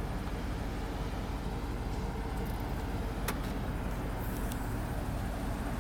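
Escalade's 6.2-litre V8 idling with a steady low rumble, with a single sharp click about three seconds in.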